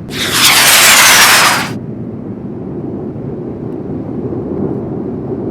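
Steady low rumble of wind buffeting the microphone, with a loud rushing hiss that starts suddenly and cuts off after about a second and a half.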